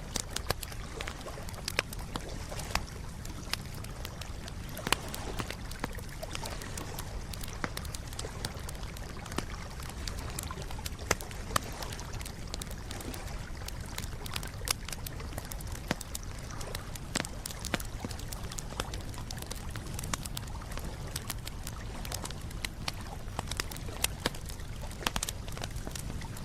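Wood campfire crackling: irregular sharp pops and snaps, several a second, over a steady low rumble.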